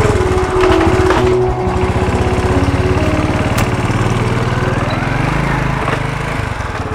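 Old step-through motorcycle's small engine running with a fast, even putter; its pitch rises and then falls about five seconds in as the bike pulls away.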